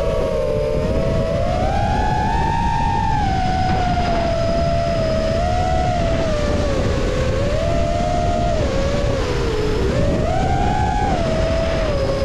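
FPV quadcopter's motors and propellers whining, the pitch rising and falling repeatedly with the throttle, over steady rushing noise.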